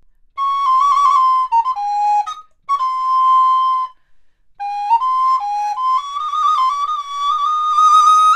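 Resin Ganassi alto recorder in G, played on its high-pitch A=466 Hz joint: a solo melody of quick ornamented notes. It comes in short phrases with two brief breaths, then a longer run.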